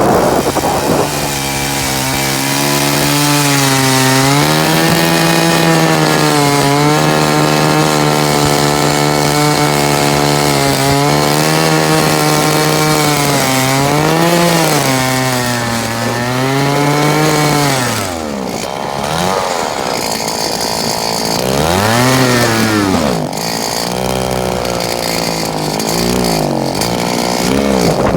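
Small engine running at high speed and holding steady for a long stretch with slight dips. Past the middle its pitch falls away, then it revs up and down in short swells a couple of times.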